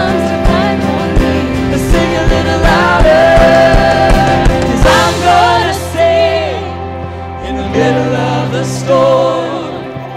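Live worship music: keyboard chords with voices singing a melody over a steady beat. The beat drops out about six seconds in, leaving a softer passage of keyboard, bass and singing.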